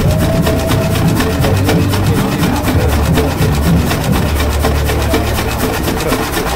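Avery 20-35 gas tractor's engine running at idle with an even, quick exhaust beat.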